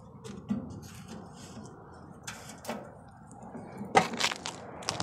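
Footsteps in sandals on a concrete walkway: a few irregular scuffs and slaps, the loudest about four seconds in.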